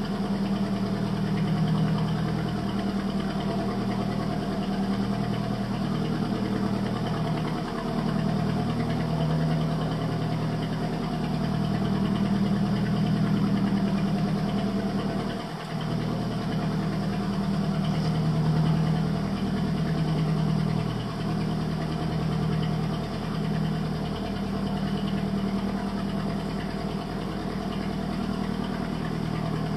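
Small boat's engine running steadily, a constant low hum that briefly dips about halfway through.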